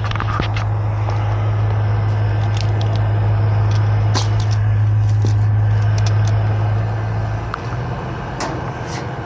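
Gas furnace running with a steady low hum that eases and shifts slightly in pitch about three-quarters of the way through, with light clicks of handling over it.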